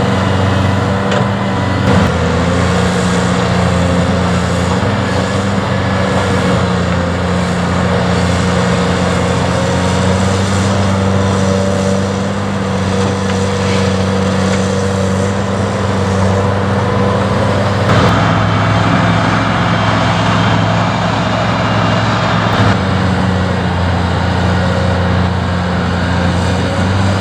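Heavy diesel engine of a Caterpillar construction machine running steadily under load. For several seconds about two-thirds of the way in, a rougher, hissing noise joins it.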